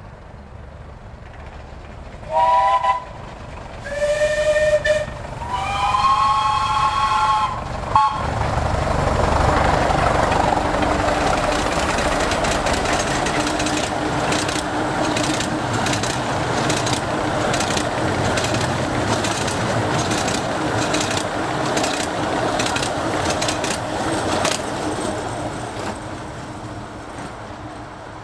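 A 15-inch-gauge miniature steam locomotive whistles three times, each blast longer than the last, then passes at speed with its train. The passing is a loud rush of running noise with a rapid, regular run of clicks from the wheels, and it fades away near the end.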